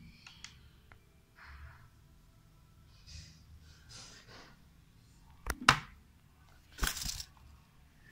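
A few faint rustling, handling noises, then two sharp cracking knocks a little over a second apart.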